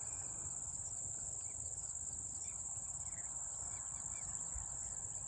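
Insects trilling in one steady, unbroken high-pitched buzz, with a few faint short bird chirps and a low rumble underneath.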